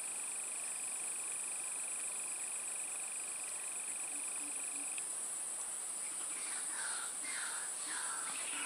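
Steady high-pitched drone of an insect chorus, with a second, lower steady whine that cuts off suddenly about halfway through. Near the end a bird starts calling, a series of short falling calls about twice a second.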